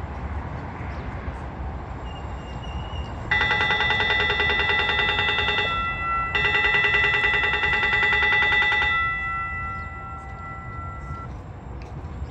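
Rail vehicle's warning bell ringing rapidly in two peals of about two and a half seconds each, with a short break between, over a steady low rumble.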